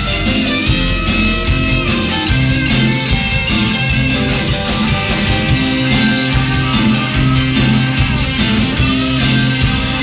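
Live rock and roll band playing an instrumental passage: electric guitar and saxophone over bass guitar and drums, with a repeating bass line.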